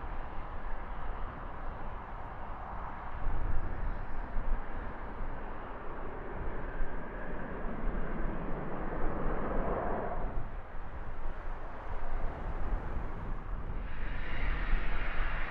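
Business jet turbofan engines running on the airfield, swelling to a peak about ten seconds in, then easing. A higher engine whine rises near the end. Gusty wind buffets the microphone with a low rumble throughout.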